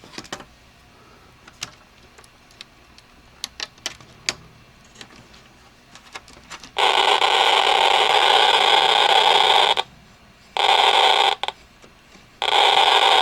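Busch 2073 electronics kit's noise-generator circuit giving out a loud, even hiss, switched on three times: once for about three seconds, then twice briefly. Before it come a few faint clicks of parts being handled. The hiss is made with a 33 nF capacitor, far above the 0.33 nF the manual calls for, which the builder judges certainly too high.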